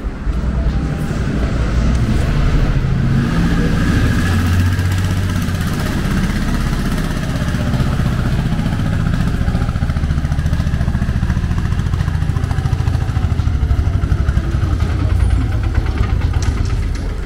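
Motorcycle engine running close by, steady and loud throughout.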